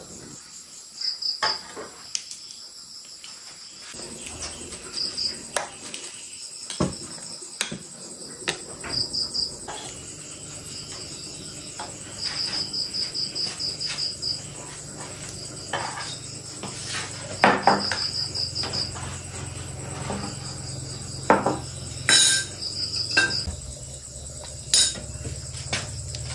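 Crickets chirping: a steady high drone with repeated trains of rapid pulsed chirps. Several sharp knocks or clatters sound now and then, the loudest a little past halfway.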